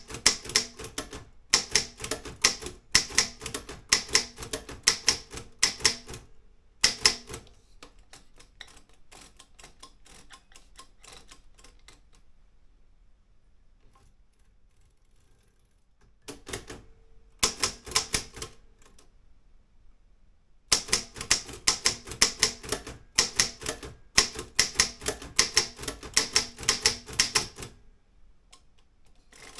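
Olympia M8 typewriter being typed on: runs of rapid keystrokes clacking against the platen, broken by pauses of several seconds. The longest pause comes in the middle.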